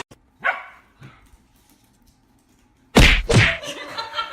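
A dog barking in short sharp barks: a smaller one about half a second in and a louder one about three seconds in.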